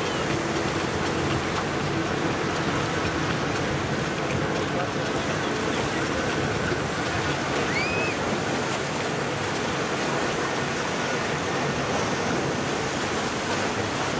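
Steady rushing noise of waves and moving water, with a faint low hum of boat engines and a short high chirp about eight seconds in.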